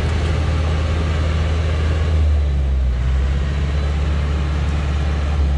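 Engine of a heavily loaded log truck bogged in mud, running with a steady low drone. Its note shifts slightly about halfway through.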